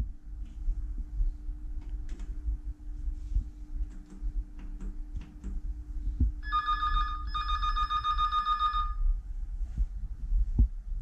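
Electronic telephone ringer at an operator position trilling once, about six seconds in, for a little under three seconds with a brief break: an incoming call. Under it runs a low steady hum with scattered light clicks.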